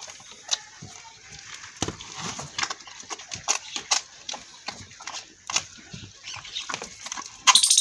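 Calf suckling at a goat's udder: wet sucking and smacking sounds, irregular, a few a second. A short, louder rush of noise comes near the end.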